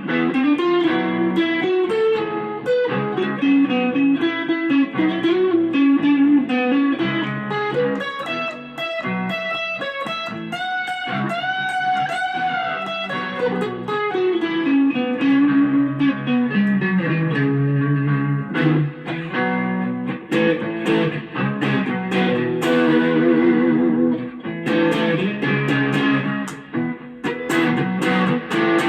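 Strat-style electric guitar with Fender Noiseless pickups played solo, clean through an amp: picked single-note lines and chord fragments, with a held, wavering bent note about a third of the way in followed by a descending run.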